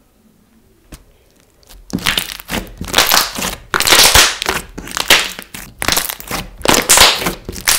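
Thick pink slime squeezed and kneaded by hand against a tabletop. From about two seconds in, each squeeze gives a loud squelch and pop as air trapped in the slime is pressed out, about two a second.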